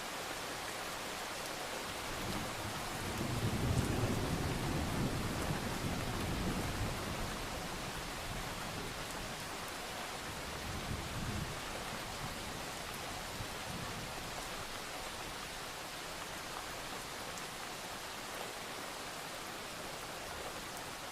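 Steady rain, with distant thunder rumbling low about two seconds in, swelling and fading over several seconds, and a smaller rumble near the middle.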